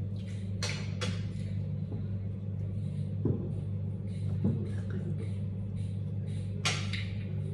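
A steady low hum throughout, with two light knocks of dishes and cutlery on the table a second or so apart near the middle, and a few brief soft rustles.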